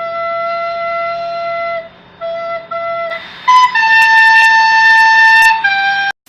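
A flute-like wind instrument playing a slow melody: one long held note, two short notes at the same pitch, then a step up to louder, higher notes held for about two seconds before a final lower note that cuts off suddenly near the end.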